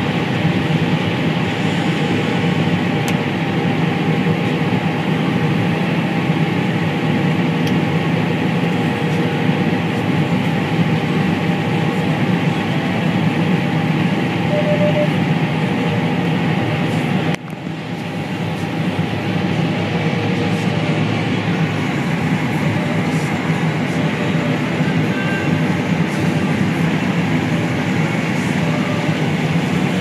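Combine harvester running at work, heard from inside the cab: a steady drone of engine and machinery while unloading into a grain cart on the go. The sound drops out briefly about two-thirds of the way through.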